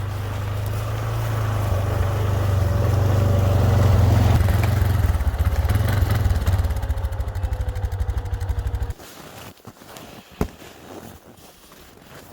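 ATV engine running with a low rumble, growing louder, then pulsing unevenly before stopping abruptly about nine seconds in. A single sharp click follows about a second later.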